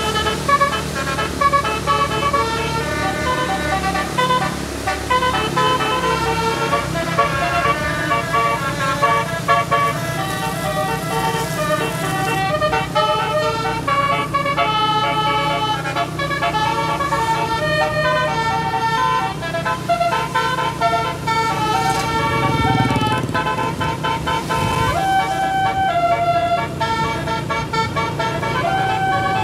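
A tour bus's telolet horn, a set of air horns switched to play tunes, sounding a long run of quick-changing notes, often several at once, over the steady low running of the bus's engine.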